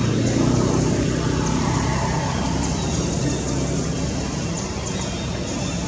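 Steady low rumbling background noise, like road traffic, with no distinct monkey calls.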